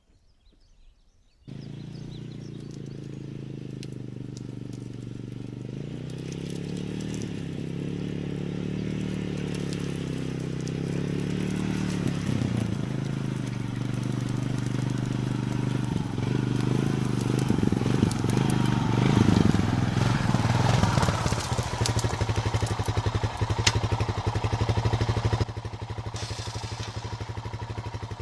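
A motor vehicle's engine running, starting suddenly about a second and a half in. Its pitch rises and falls as it drives, and it grows louder toward the middle with many clicks and knocks over it, then drops back a few seconds before the end.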